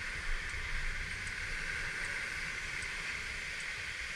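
Kymco Like 125 scooter on the move: steady wind and road noise with a low engine rumble underneath, and a faint tick repeating a little more than once a second.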